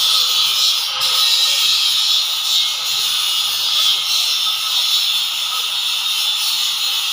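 A steady, high-pitched hiss or buzz with no distinct knocks or rhythm, dipping briefly about a second in.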